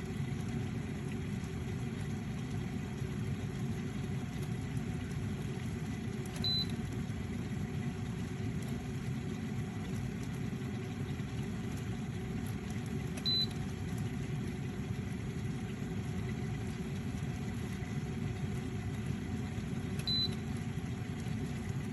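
Electric kettle with a steady low rumble, giving a short high beep about every seven seconds, three times.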